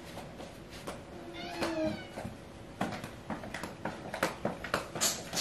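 A single short, wavering high-pitched call about a second and a half in, then a string of soft footsteps and light knocks as someone walks past.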